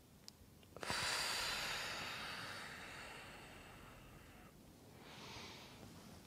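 A person breathing audibly during a slow yoga movement: a long hissing exhale of about three and a half seconds that fades slowly, then a shorter, softer inhale near the end.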